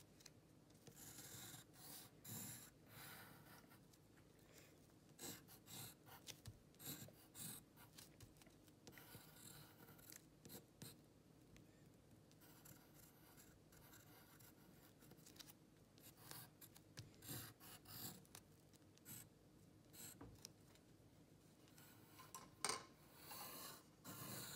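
Faint scratching of a pencil drawing on paper, in short irregular strokes, with a soft bump near the end.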